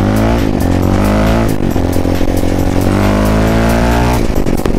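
Sport quad bike's engine accelerating on the road, its pitch climbing and dropping back twice as it runs up through the gears, the second drop about four seconds in. Background music with a steady beat plays underneath.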